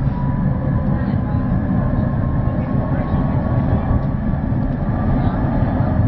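Tram running along street track, heard from inside the car: a steady low rumble of wheels on rails, with a faint whine that slowly rises in pitch.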